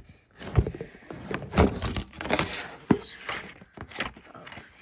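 Phone handling noise: scratchy rustling and a few sharp small knocks as the phone is moved against a window screen.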